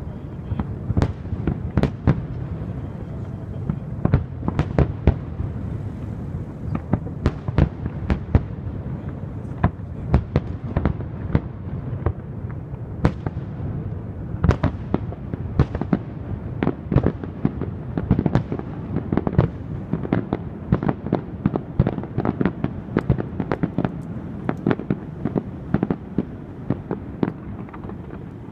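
Aerial fireworks shells bursting in a large display: many sharp bangs in quick, irregular succession over a continuous low rumble.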